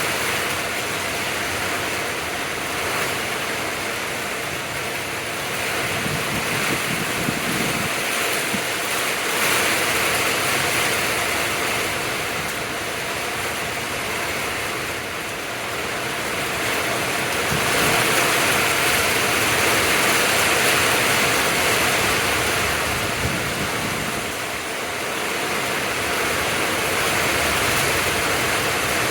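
Heavy rain pouring down in gusting wind, a steady rushing that swells louder and eases off every several seconds.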